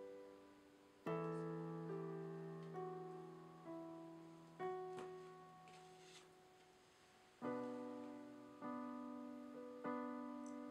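Soft, slow piano music: sparse single notes and chords, each struck and left to fade, with fuller chords at about one, four and a half and seven and a half seconds in.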